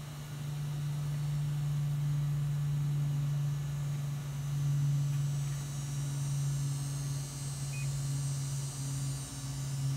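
A steady low hum, and a single short electronic beep about eight seconds in from the ceiling fan's remote receiver acknowledging a button press as the fan's light comes on.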